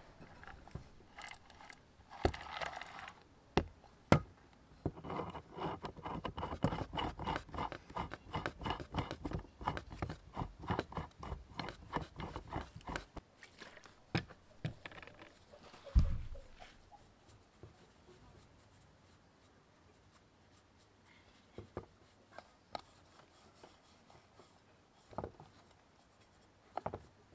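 Old Polish hand drill's crank turned by hand, its gears clattering in a steady rhythm of about four strokes a second for several seconds. A single thump follows, then faint rubbing of a rag over the drill.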